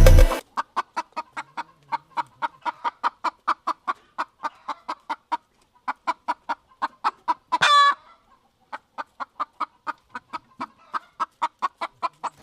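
Chicken clucking in quick, even clucks, about six a second, broken a little past the middle by one louder, wavering high squawk, then a short pause before the clucking resumes.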